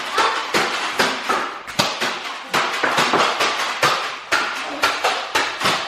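Nerf foam-dart blasters firing and darts striking during a Nerf battle: an irregular run of sharp clacks and thuds, about three a second.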